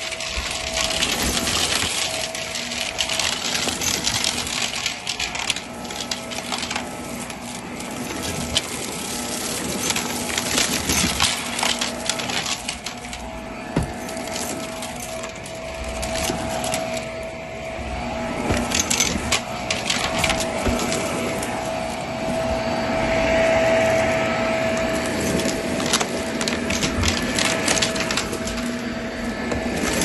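Vacuum cleaner motor running with a steady whine while it sucks up shiny confetti debris from carpet, the pieces rattling and clicking through the head in irregular bursts.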